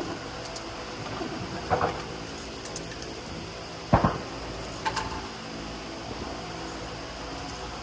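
A few short knocks and clinks, the loudest about four seconds in, over a steady faint hum.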